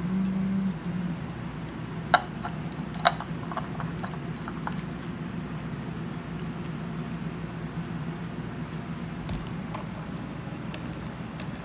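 A spin-on oil filter being handled and screwed onto a motorcycle engine's filter mount by a gloved hand. There are two sharp clicks about two and three seconds in, then faint scratchy handling noises over a steady low hum.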